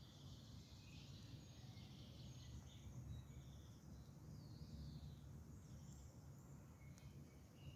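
Faint songbirds chirping and trilling in short phrases over a steady low rumble of background noise, with a single faint click, like a fire pop, about seven seconds in.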